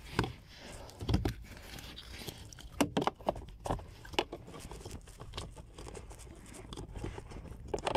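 Hands working the plastic cabin air filter housing behind the glovebox: irregular plastic clicks and knocks with rustling as the filter and its cover are fitted.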